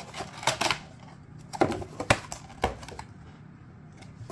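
Cardboard box packaging and card packs being handled as the contents are pulled out: a few sharp taps and knocks with light rustling, mostly in the first three seconds.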